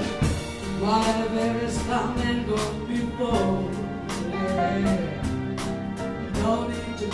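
Live jazz band with a string section, violins, viola and cello, over piano, bass and drums, playing a slow ballad with a steady drum beat.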